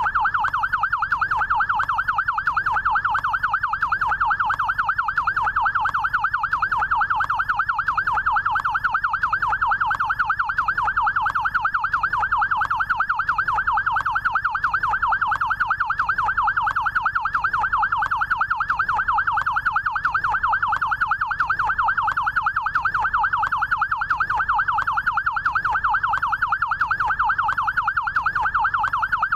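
Electronic yelp siren of a SAMU rescue motorcycle: a rapid, steady up-and-down wail that repeats many times a second without a break.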